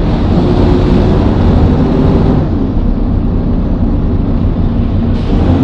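El Detalle OA106 minibus diesel engine running steadily, its note easing slightly about halfway through.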